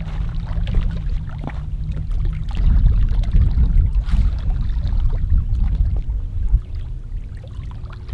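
Wind buffeting the microphone in an uneven low rumble, with water lapping at the rocks. It is strongest midway and eases toward the end.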